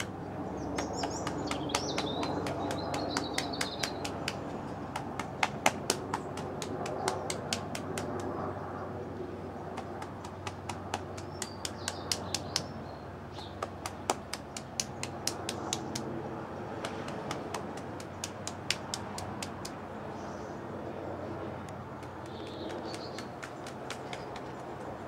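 Open hands slapping and patting the body, arms, chest and head, in runs of sharp pats several times a second: the qigong slapping exercise.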